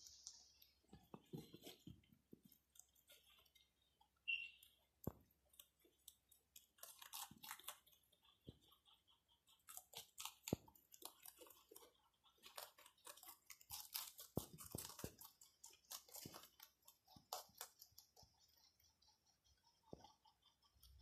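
Several rabbits crunching and chewing raw celery and cucumber, giving faint, quick crisp clicks that come in clusters. A brief high squeak comes about four seconds in.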